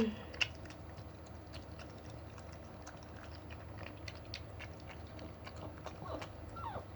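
Mother dog licking her newborn puppy: a run of quick, wet mouth clicks and smacks, with a brief falling squeak near the end.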